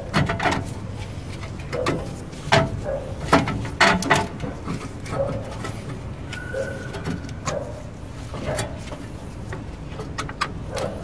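Scattered metal clicks and knocks as a brake caliper with new pads is worked back over the rotor and seated. A brief steady tone sounds about six seconds in.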